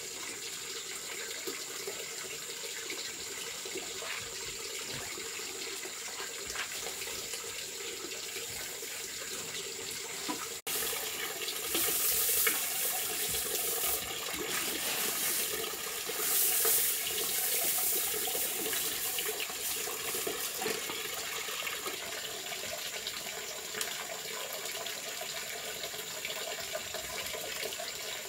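Dry paddy rice grains rustling and shifting in a woven basket as eggs are bedded into them, in several louder spells from about eleven seconds in, over a steady rushing background like running water.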